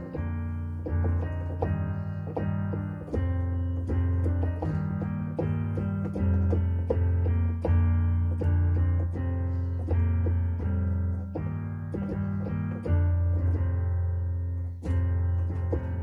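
Digital keyboard played with a piano voice: a hymn in B-flat, chords struck in steady succession over held low bass notes.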